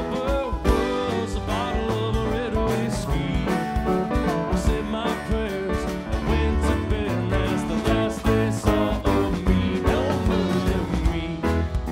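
Live band playing a country tune: a strummed acoustic guitar, a drum kit and a resonator guitar (dobro) played lap-style with a slide.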